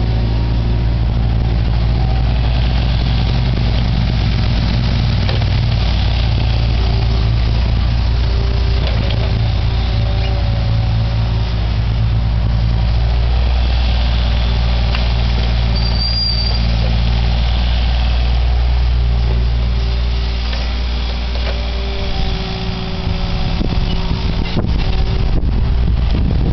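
Excavator engine running steadily under work, with a brief high squeal about two-thirds of the way in. Near the end the engine sound briefly dips and changes.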